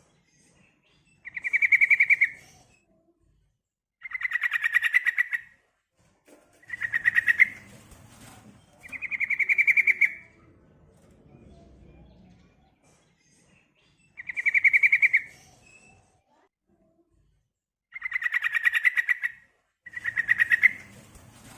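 Female yellow-vented bulbul (trucukan) giving seven short, fast rattling calls spaced a few seconds apart: the call used as a lure to make other trucukan answer and sing.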